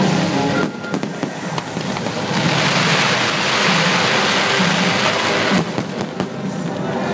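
Fireworks bursting overhead with sharp bangs, over a music soundtrack. A thick stretch of crackle and hiss runs from about two and a half to five and a half seconds in.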